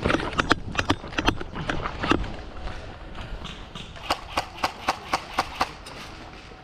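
A run of sharp knocks and clacks: irregular for the first two seconds, then six evenly spaced about four seconds in.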